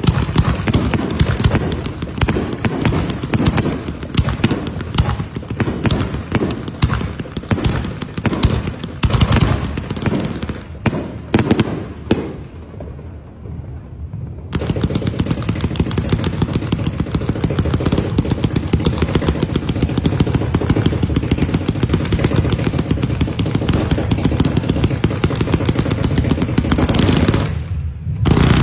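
Aerial fireworks going off: a dense run of rapid bangs and crackles for the first twelve seconds, a brief lull, then a steady fast crackle of bursting shells that drops away briefly near the end.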